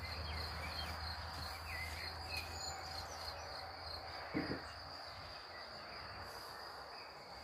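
Insects chirring outdoors: a steady, unbroken high-pitched trill. A brief dull thud comes about four and a half seconds in.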